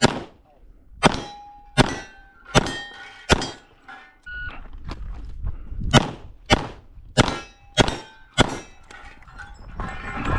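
Ten .45 ACP shots from a Smith & Wesson 625 revolver. Five come about a second apart, then a pause of about two and a half seconds while the six-shot cylinder is reloaded, then five more come faster, about 0.6 s apart. Several hits leave steel targets ringing.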